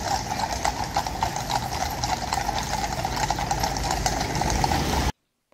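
Household Cavalry horses walking in a troop on a road, their hooves clip-clopping in many overlapping strikes over a steady low rumble. The sound cuts off abruptly about five seconds in.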